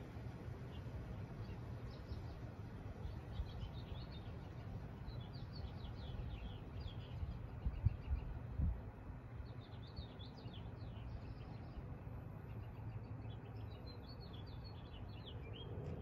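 Low steady hum of a Mitsubishi Electric mini-split heat pump's outdoor unit running, with small birds chirping again and again over it. Two brief low thumps come about halfway through.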